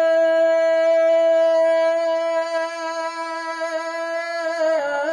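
Naat reciters' voices holding one long, steady note through a PA system. Near the end it breaks into a wavering, ornamented sung line.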